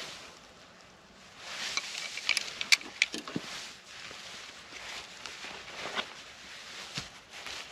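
Rustling and crackling of grass and dry fallen leaves handled close by, as alder seed is sown into a seed nest on the ground. A cluster of sharp crackles comes about two to three seconds in, with shorter rustles near the end.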